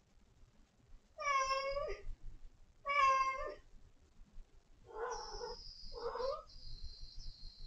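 Domestic cat meowing four times: two drawn-out, clear meows, then two shorter, rougher ones about five seconds in. A thin high steady tone comes in with the later meows and carries on.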